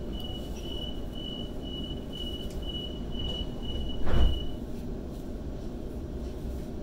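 Door-closing warning beeps on a Waratah A set train: a steady high-pitched beep repeating a couple of times a second for about four and a half seconds, with a loud thud about four seconds in as the doors shut, over the train's low hum.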